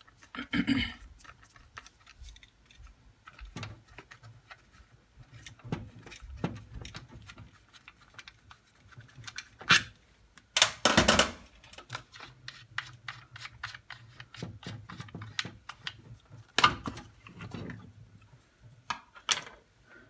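Small clicks, taps and rattles of a screwdriver working the screw in the plastic terminal-box cover of a Grundfos central-heating pump, held in the hand, with a few louder knocks and a short clatter about ten seconds in.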